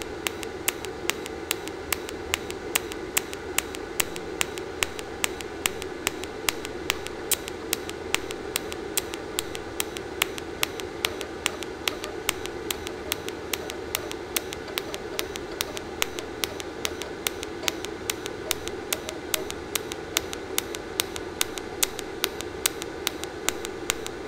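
Pulse TIG (argon arc) welding arc from an ANDELI TIG-250 series welder on 3 mm stainless steel: a steady hiss with a sharp tick on each current pulse, about three a second.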